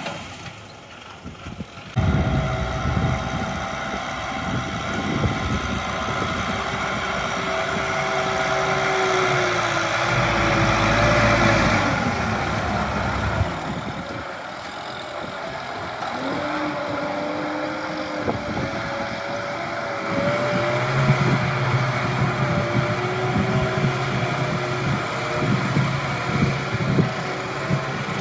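Kubota tractor's diesel engine running while it pulls a disc plow through a muddy paddy. The engine's pitch wavers, dipping about a third of the way in and rising again about halfway through.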